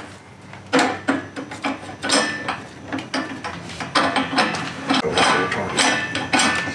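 Plastic sausage tube and metal collar ring being fitted by hand onto a meat grinder's head: a run of clicks, knocks and clatter.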